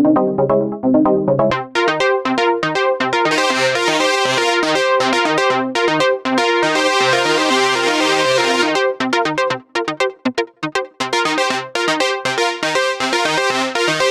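Roland J-6 chord synthesizer playing a factory preset: a fast sequenced pattern of short repeated synth notes and chords. About a second and a half in the low notes drop out and the pattern turns brighter.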